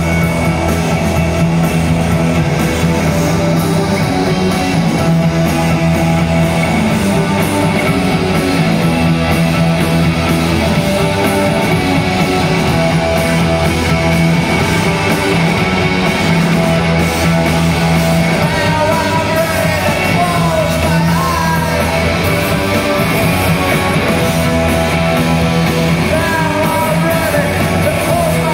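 Rock band playing live and loud: electric guitars, bass and drums driving a repeating riff, with a lead vocal over it.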